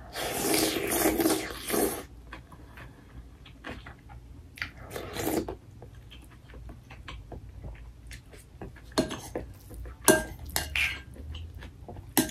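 Metal spoon scraping and clinking against a ceramic bowl while rice is scooped and mixed, with a louder stretch of noise in the first two seconds and sharp clinks in the last few seconds.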